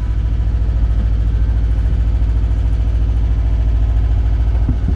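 A sailboat's engine idling steadily, with a strong low hum and a fast, even pulse.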